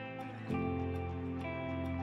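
Soft background music of sustained chords, with a new, fuller chord coming in about half a second in.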